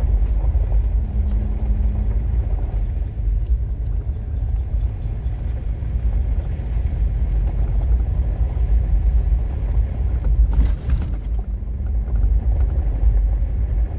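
Steady low rumble of a truck driving on a dirt road, engine and tyre noise heard from inside the cab. There is a short burst of rattling noise about ten and a half seconds in.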